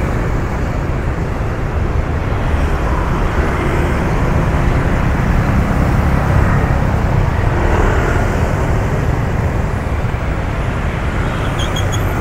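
Steady city road traffic: a continuous low rumble of engines and tyres from surrounding vehicles.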